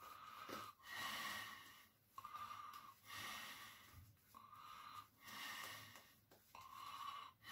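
A man breathing quietly through the nose, in and out, about one breath every two seconds.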